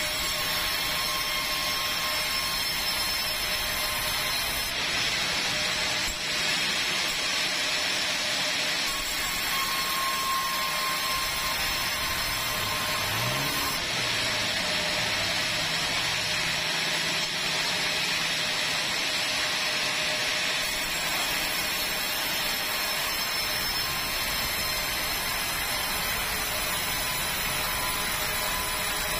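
Sawmill band saw running steadily as a log is fed through it, a continuous whine and hiss of blade in wood. The high hiss brightens in three long stretches.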